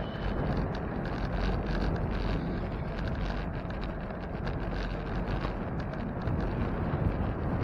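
Wind rushing over the microphone of a bicycle in motion, a steady low buffeting, with faint small clicks and rattles throughout.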